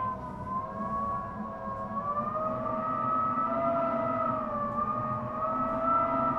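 Strong monsoon wind howling around a seaside house: several whistling tones that waver slowly up and down together over a low, steady rush of wind.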